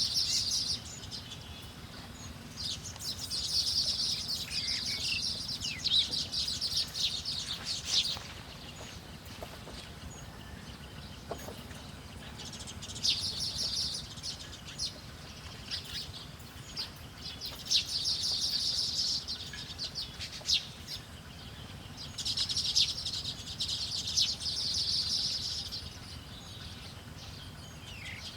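Small songbirds chattering in repeated high-pitched bouts of a few seconds each, with quieter gaps between.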